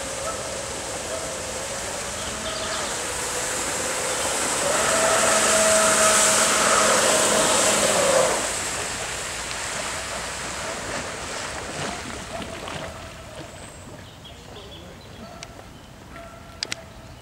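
Homemade electric jet surfboard under way: the jet drive's motor whine over the hiss of spray, growing to its loudest as it passes close, then dropping off sharply and fading as the board slows and stops. A couple of sharp clicks near the end.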